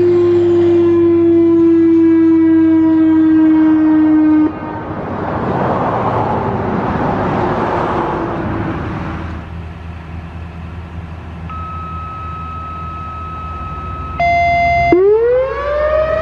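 Whelen WPS-4004 electronic outdoor warning siren sounding its wailing tone: a loud falling note that cuts off abruptly about four seconds in, a few seconds of rushing noise, a fainter steady higher tone, then a new wail rising sharply near the end.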